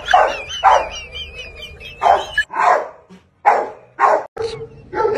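A dog barking in short, sharp barks, about seven in all, with a high wavering tone under the first few.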